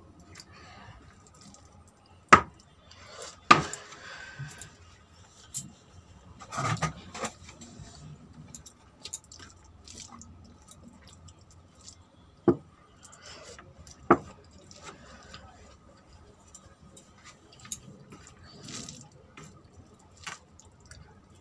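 Rice and curry being mixed and eaten by hand from a plate: four sharp knocks on the plate stand out, about two seconds in, a second later, and twice more at about twelve and fourteen seconds, with softer clicks and eating sounds between.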